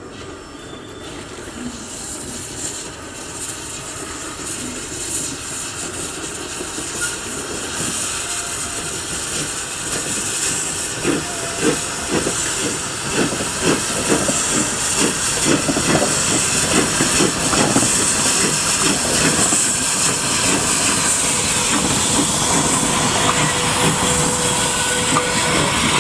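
Steam locomotive NM25 hauling a passenger train, its exhaust chuffing and steam hissing, growing steadily louder as it approaches and passes close by. The carriages roll past near the end.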